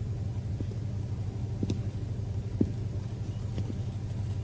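Low steady hum with a few faint, light clicks over it.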